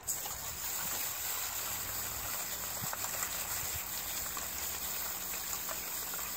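Steady hiss of a pressurized spray from a hose nozzle directed at the disassembled bolt of a Lynks 12 AK-pattern shotgun, blasting out dirt and fouling during cleaning.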